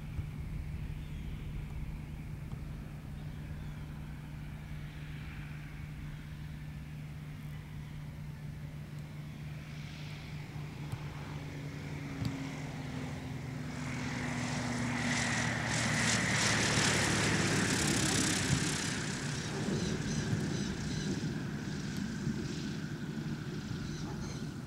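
Jabiru J230 light-sport aircraft's propeller engine droning steadily as it comes in low to land. It grows loudest as it passes close, about fifteen to nineteen seconds in, then eases off.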